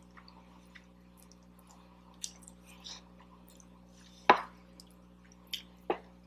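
Close-up mouth sounds of someone eating soft food: a scatter of small clicks and smacks from chewing, the loudest about four seconds in.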